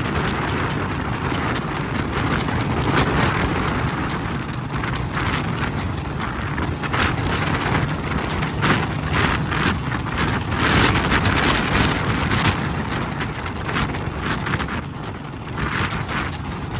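Steady running noise of a moving motor vehicle, with irregular clicks and clatter throughout.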